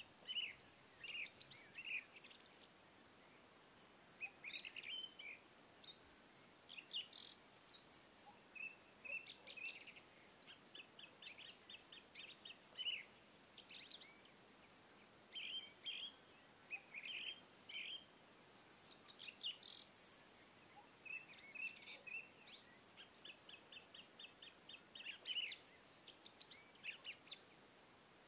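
Birdsong laid on as a background sound track: small birds chirping and trilling in quick runs of short high notes, with brief gaps between the runs.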